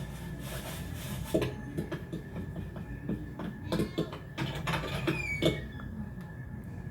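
Film sound effects with no music or dialogue: a scatter of small clicks, knocks and squeaks, with a short falling squeal about five seconds in, over a steady high hum.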